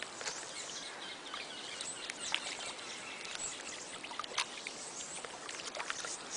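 Outdoor ambience: a steady hiss with scattered brief high chirps and ticks.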